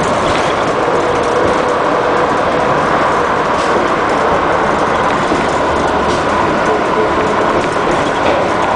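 A 1999 Orion V CNG bus, its Detroit Diesel Series 50G natural-gas engine and Allison B400R transmission running with a steady whine, with light rattles and clicks over it.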